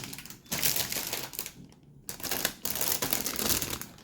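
Bagged plastic model-kit runners being handled, crinkling and clattering in two stretches with a short pause between them.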